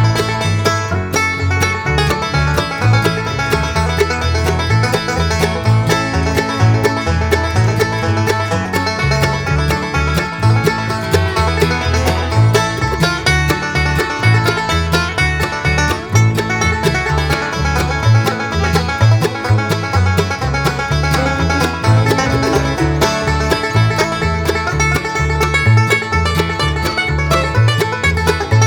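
Background music with a steady beat and bass line, bright plucked-string sound.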